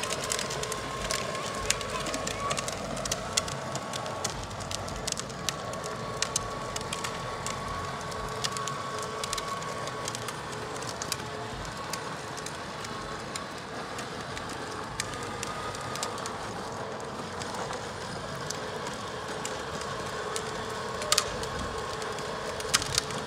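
Child's ride-on go-kart towing a Radio Flyer wagon over asphalt: hard plastic wheels rolling with a steady gritty crackle of many small clicks, under a faint steady whine.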